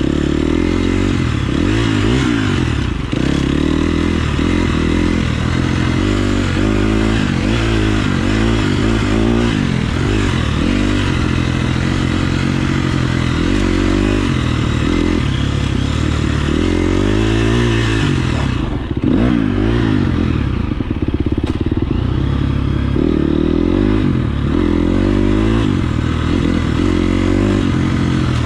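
KTM 350 SX-F dirt bike's single-cylinder four-stroke engine being ridden hard, its revs rising and falling over and over through the gears, with a short drop in revs about two-thirds of the way through.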